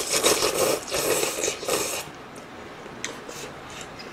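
Noodles from budae-jjigae slurped loudly in three hissing pulls over the first two seconds, followed by quieter chewing with a few soft clicks.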